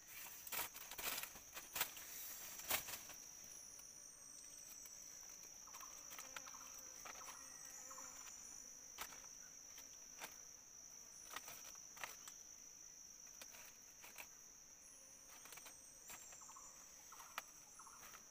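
Faint, steady, high-pitched drone of insects in the forest, with scattered sharp clicks and taps, most of them in the first few seconds.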